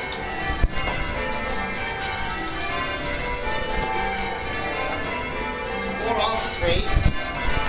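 Church tower bells being rung full circle in change ringing, each bell striking in turn so that their ringing tones overlap continuously. There is a single sharp knock a little under a second in.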